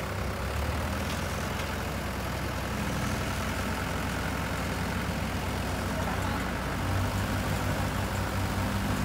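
Mahindra tractor's diesel engine running steadily. About seven seconds in it grows louder as the hydraulic tipper starts lifting the loaded trailer to dump the earth.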